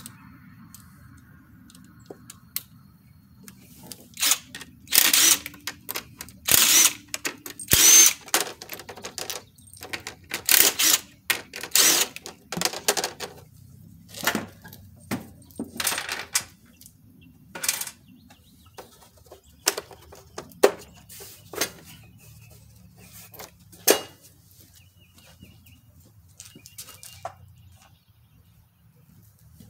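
Cordless 20-volt drill running in short bursts as it spins out the screws holding the mower engine's blower housing and flywheel screen. The bursts come thickest in the first half and grow sparse after it.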